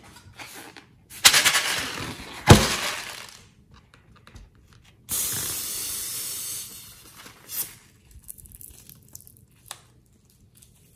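Filled rubber balloon being handled and cut: a loud rustling noise with a sharp snap about two and a half seconds in, a steady hiss lasting about a second and a half from around five seconds, then a short scissors snip at the balloon's tip about seven and a half seconds in.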